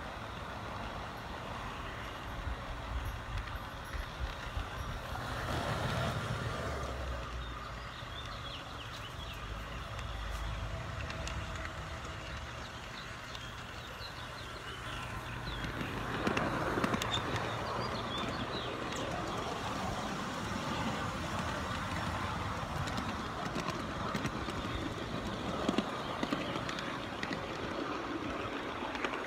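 Garden-scale model train running along its outdoor track, heard from on board: a steady low hum with wheel and rail noise that swells twice, and occasional sharp clicks.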